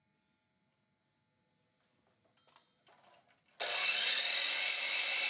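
Sliding compound miter saw switched on about three and a half seconds in, after a few light handling knocks, running loud as its blade is lowered into a wooden bar rail molding for a 45-degree miter cut.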